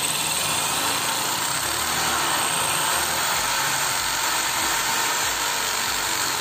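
Buildskill Pro 500 W 13 mm impact drill running steadily at full speed, its masonry bit boring into a wall until it goes all the way in.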